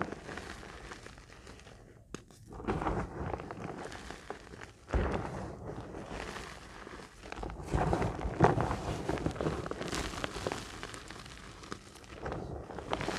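Reformed gym chalk being crushed in the palms: several bursts of crunching and crumbling as chunks break apart and powder pours back onto the pile, the loudest in the second half.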